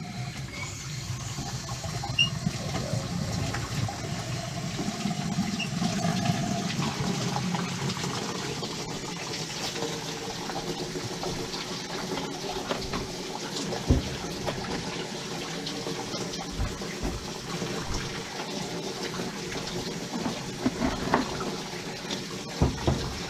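Steady rushing, water-like noise, with a few scattered knocks and clicks.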